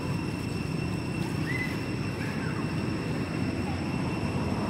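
Steady low outdoor rumble with a thin, steady high-pitched hum over it, and two faint short chirps about one and a half and two and a half seconds in.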